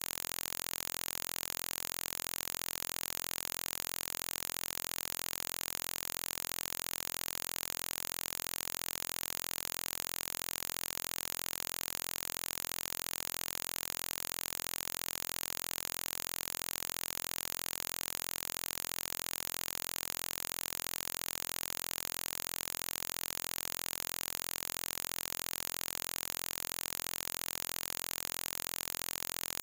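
Steady hiss of static, unchanging throughout, with no other sound.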